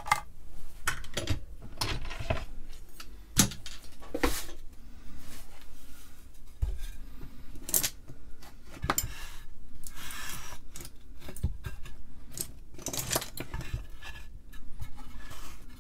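Handling noise on a workbench: a metal circuit-board holder and a wooden board being moved about and set down, giving irregular clicks, knocks and clatter with some rubbing between.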